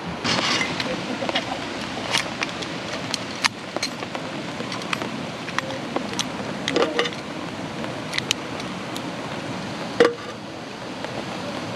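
Small clicks, taps and rattles from a small metal camping lantern being handled over an aluminium folding table, with one sharper knock about ten seconds in, over a steady background hiss.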